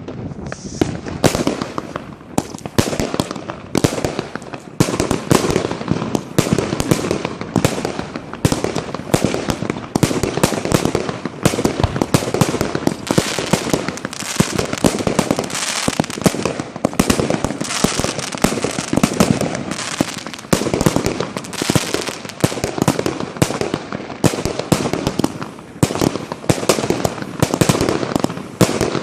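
Consumer fireworks going off in a dense, continuous barrage: rapid bangs and crackles following one another with no pause.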